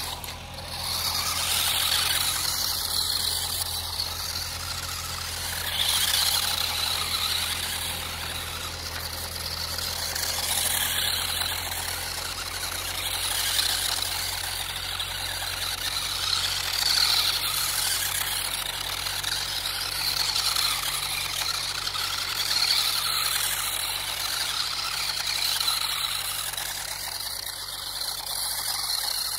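Small electric motor of a radio-controlled drift car whining, its pitch rising and falling again and again as the throttle is worked, over a steady hiss.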